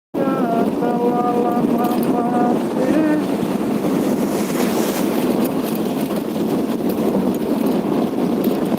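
Steady running noise of a moving vehicle with wind buffeting the microphone. A few held pitched tones sound over it in the first two or three seconds.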